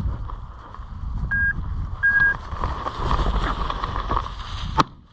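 Two short electronic beeps at one pitch from a hunting dog's beeper collar, over the rustle and thud of walking through brush. A single sharp click sounds near the end.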